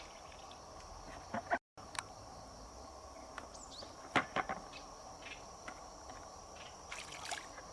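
Steady high-pitched insect chirring, with a few scattered sharp clicks, the loudest about four seconds in. The sound drops out completely for a moment just under two seconds in.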